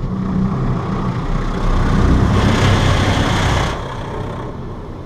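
Automatic car wash running, heard from inside the car: a low machinery rumble under a hissing rush of water spray against the body that swells about two seconds in and drops away before four seconds.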